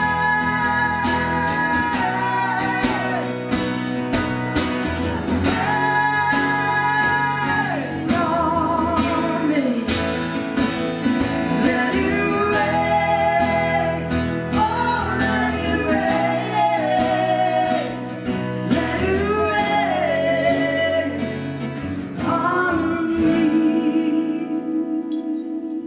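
Live acoustic performance: a woman singing over two strummed acoustic guitars. Near the end she holds one long note with vibrato.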